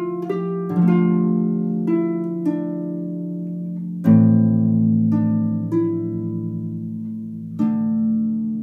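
Harp played by hand: a quick run of plucked notes in the first couple of seconds, then a full chord struck about four seconds in that rings on under a few single notes, and another chord near the end left ringing.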